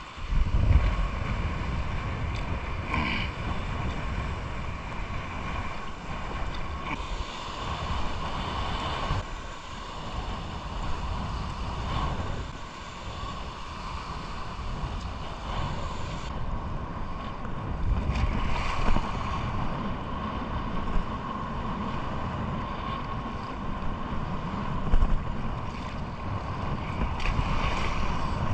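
Steady wind noise on the microphone, with small waves lapping at the lagoon's edge.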